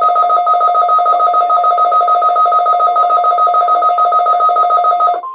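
Weather alert radio's warning alarm: a loud electronic warble of two high tones pulsing rapidly, about eight times a second. It cuts off suddenly near the end as a single steady tone begins.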